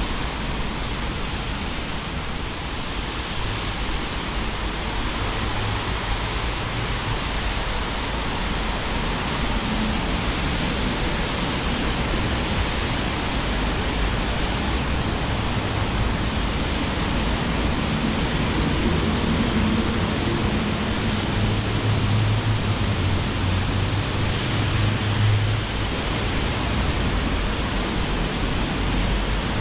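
Steady rushing noise of wind on a GoPro's microphone, mixed with the hiss of traffic on wet roads. A low vehicle engine hum rises for a few seconds in the last third.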